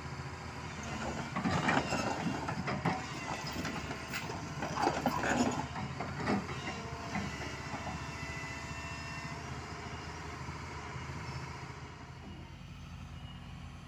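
Doosan DX225LCA crawler excavator running steadily on its diesel engine, with its steel tracks clanking and squealing in a run of knocks for several seconds in the first half as the machine moves onto the truck's steel loading ramps.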